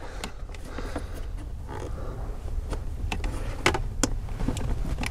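Light plastic clicks and handling noises at irregular intervals from fingers working a wiring-harness connector on a blower motor resistor, pressing its release tab to unplug it, over a steady low rumble.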